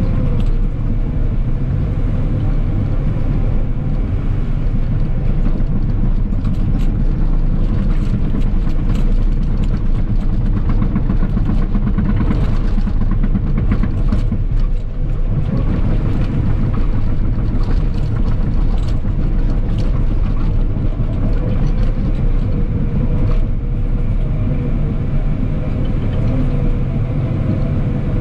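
Cat 963K track loader's diesel engine running steadily with a low rumble, with scattered short clicks and knocks from the working machine, most of them in the middle stretch.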